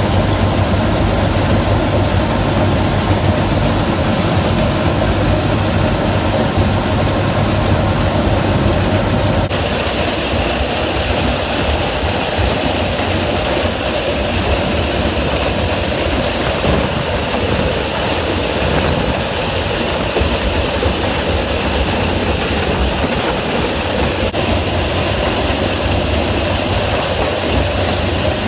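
Diesel engines of heavy farm machinery running steadily under load during corn harvesting. The sound changes abruptly about a third of the way in, as the recording cuts to another shot.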